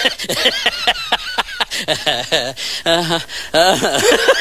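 Loud, high-pitched human laughter in rapid repeated bursts, breaking into a quick regular ha-ha-ha near the end.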